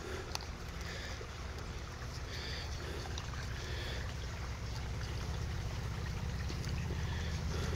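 A steel knife scraping and shaving a thin stick in short strokes, faint, over a steady low rumble that grows slightly louder.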